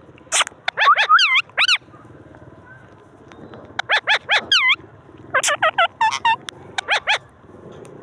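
Indian ringneck (rose-ringed) parakeets calling: short, sharp, swooping squawks in three quick bunches.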